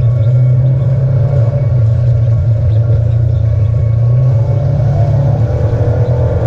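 Engine of an off-road vehicle, heard from on board, running with a steady low drone as it drives along at an even pace.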